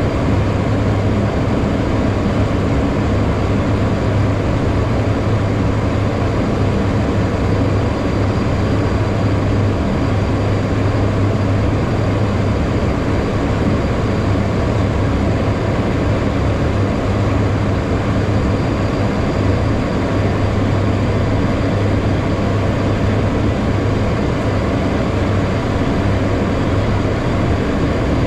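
Steady cockpit noise of a HondaJet on approach: the constant low hum of its GE Honda HF120 turbofan engines mixed with the rush of airflow over the cockpit.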